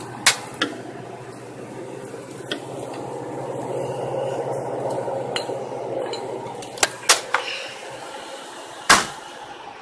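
Glass Ramune bottles clinking and knocking about six times as they are handled, the loudest knock near the end. Underneath is a steady hum from the refrigerated drink coolers.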